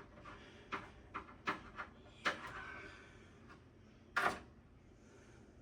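Small clicks and light knocks of a screwdriver and screws as motherboard screws are backed out of a PC case, with one louder clack about four seconds in.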